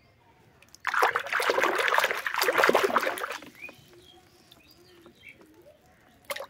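Water splashing and sloshing in a plastic basin as a small plastic toy is dunked and swished about, for about two and a half seconds starting about a second in.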